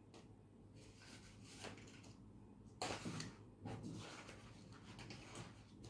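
Near silence: faint room tone, broken by two brief soft handling noises about three seconds in.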